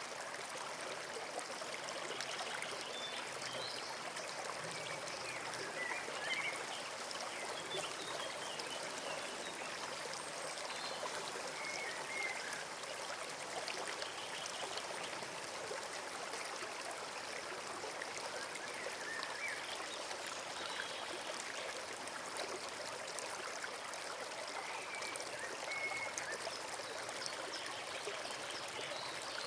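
Forest stream flowing and trickling over stones, a steady rush of water, with faint bird chirps every few seconds.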